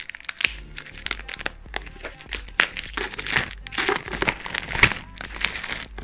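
Packaging around a newly delivered book crinkling and tearing as it is unwrapped by hand: a dense, irregular run of crackles and rustles.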